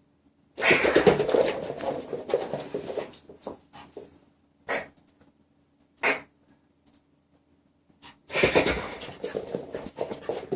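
A Maltese dog at play, making two long stretches of scuffling noise with two short sharp sounds between them.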